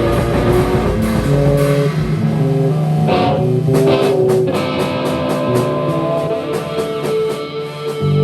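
Instrumental rock band improvising: electric guitar playing note lines over bass and drums.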